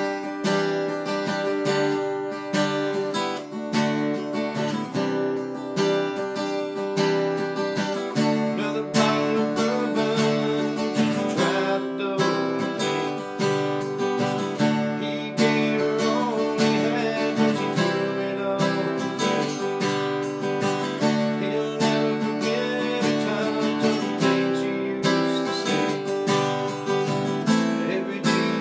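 Acoustic guitar strummed in a steady rhythm, an instrumental passage of chords with no singing.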